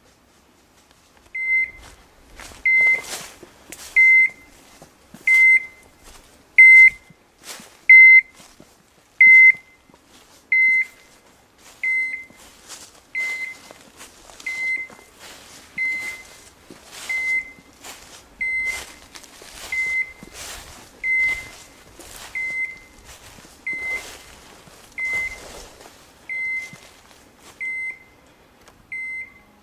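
Dog's beeper collar giving a single high beep about every 1.3 seconds, louder at first and then quieter. The steady fast repeat is typical of a hunting beeper's point mode, sounded while the dog stands on point. Between the beeps, footsteps crunch through dry leaves and brush.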